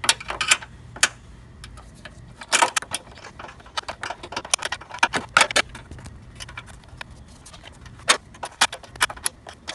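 Sharp, irregular metallic clicks and clinks, in clusters, of a 10 mm box-end wrench being worked on the coolant reservoir's mounting bolt.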